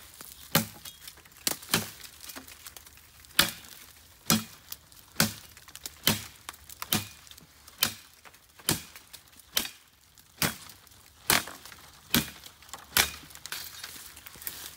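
Machete chopping into the trunk of a small standing tree: sharp strikes at a steady pace of about one a second, some fifteen blows in all.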